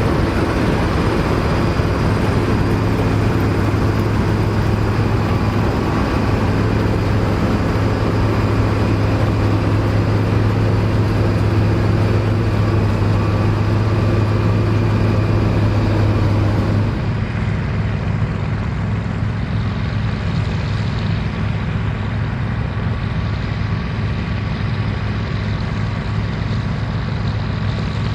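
Dronningborg D2600 combine harvester running steadily under load, a loud low engine hum with threshing machinery noise over it. About two-thirds of the way through the sound turns softer and duller and the strong hum drops away.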